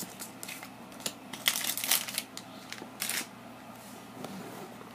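Pokémon trading cards and a foil booster pack being picked up and moved on a wooden parquet floor: a series of short rustles, scrapes and light taps, loudest between about one and a half and two seconds in and again around three seconds in.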